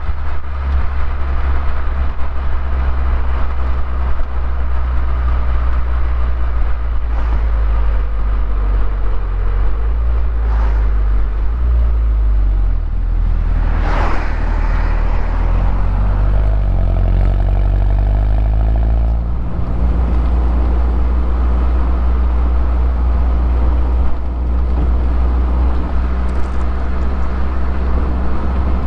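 2011 Mini Cooper S R56's turbocharged 1.6-litre four-cylinder engine on the stock exhaust, driving with a steady low drone. About halfway through, the engine note shifts up and down in pitch for several seconds. A brief loud rushing sound comes just before that.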